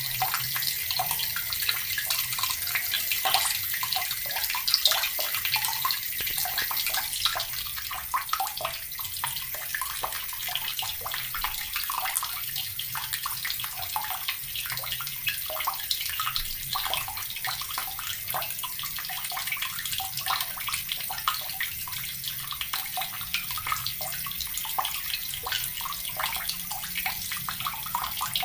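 Water running steadily from a tap into a plastic bucket, splashing and gurgling as it fills.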